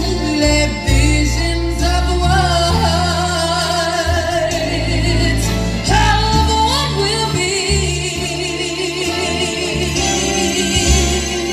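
Live music: female vocalists sing held, wavering notes over an accompaniment with a strong bass line.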